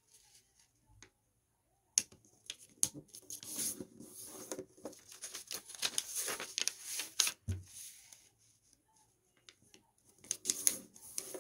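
A square of origami paper rustling and crackling as it is folded in half, pressed flat into a crease against a tabletop and opened out again. The sound is irregular rustles and light taps in two spells with a short pause between, and one soft thump on the table.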